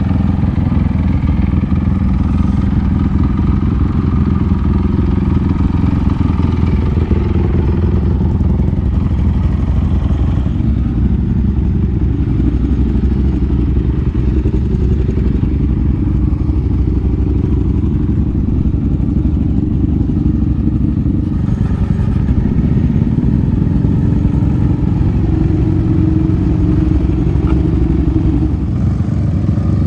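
Yamaha Raptor 700 quad's single-cylinder four-stroke engine, fitted with an aftermarket full exhaust, running hard while riding on dirt, its revs rising and falling.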